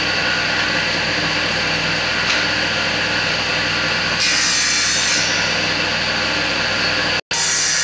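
A strip of wood being smoothed by hand, a block tool rubbed back and forth along it in continuous rasping strokes, over a steady low hum.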